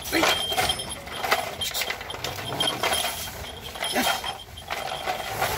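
Belgian Malinois puppies scuffling over tug toys in a wire pen: a constant clatter of paws and claws on plastic slat flooring and rattling wire mesh, with a few brief puppy yelps.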